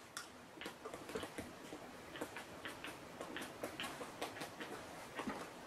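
Computer keyboard being typed on: faint, irregular key clicks, about three or four a second.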